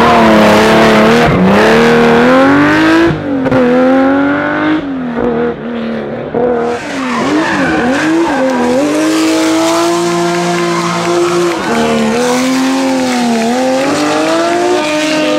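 Classic Porsche 911 rally car's air-cooled flat-six being driven hard, the revs swinging up and down repeatedly with throttle and gear changes, with one long steady pull late on. Tyres squeal as the car slides through the hairpins.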